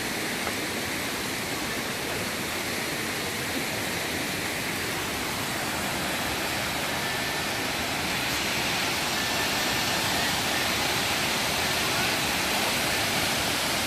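Waterfall rushing: a steady hiss of falling water, growing a little louder about eight seconds in.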